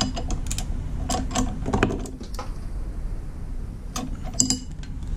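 Socket ratchet clicking in short runs, with clinks of steel tools on the bolt, as a motor-mount through-bolt is snugged a little tighter.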